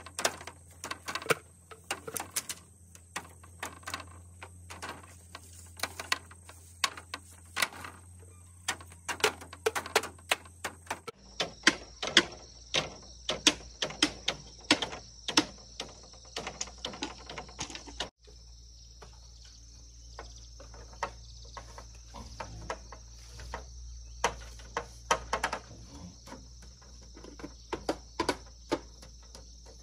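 Split bamboo strips clattering and knocking as they are worked into a bamboo frame, a long run of irregular sharp clicks and taps. Insects chirr steadily and high-pitched behind them.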